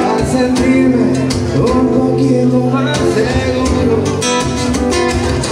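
Live music: a man singing with his own acoustic guitar, strummed, through a microphone and small PA, with long held sung notes.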